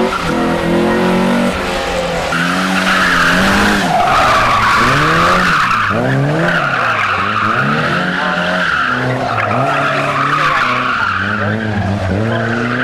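Rally cars driven hard on tarmac: engines revving up and down over and over as they are thrown around cones, with tyres squealing in long slides. A white Opel Manta rally car is heard briefly near the start, then a red Mk2 Ford Escort rally car for the rest.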